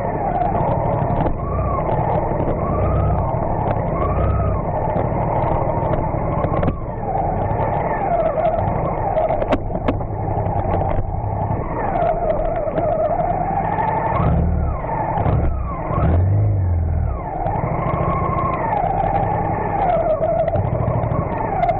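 A vehicle engine running steadily, its pitch rising and falling as the throttle changes, with heavier low bumps about two-thirds of the way through.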